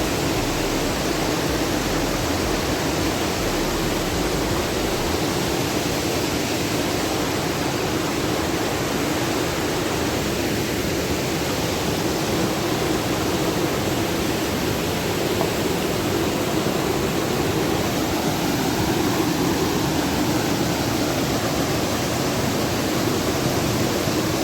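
A mountain river rushing steadily in a strong current.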